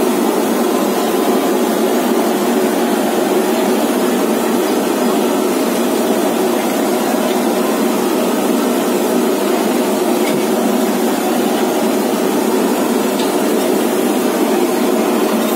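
A steady, loud rushing drone that does not break or change.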